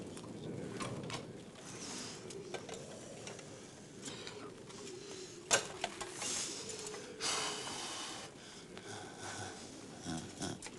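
Fire at the stake crackling, with scattered sharp cracks, one loud crack about five and a half seconds in, and a hissing rush a couple of seconds later.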